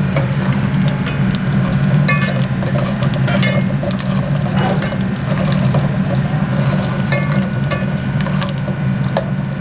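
Steel ladle scraping and clinking against an aluminium pot as onions and spices are stirred in hot oil, in irregular clicks and scrapes over a steady low hum.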